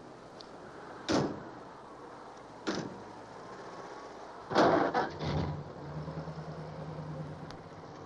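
Two sharp knocks about a second and a half apart, then a louder clatter of knocks, followed by a low steady hum.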